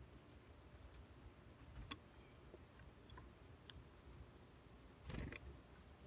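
Near silence broken by a few faint, sharp clicks as a female northern cardinal cracks seeds in its bill on a wooden platform feeder. About five seconds in comes a short, louder rustle as the bird shifts and moves off across the tray.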